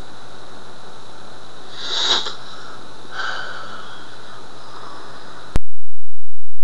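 Room hiss with a faint steady high whine from the recording. About two seconds in comes a short breathy whoosh, with a softer one a second later, then the sound cuts off abruptly.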